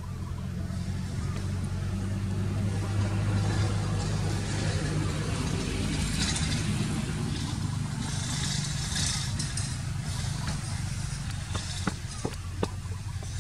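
A motor vehicle's engine running steadily with a low hum, growing a little louder a few seconds in, with a few sharp clicks near the end.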